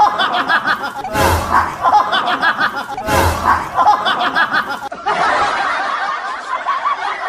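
Laugh track of many people laughing and snickering, with a louder burst of laughter about every two seconds, settling into steadier crowd laughter near the end.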